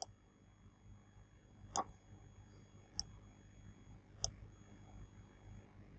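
Four faint computer mouse clicks about a second apart, over a low steady hum.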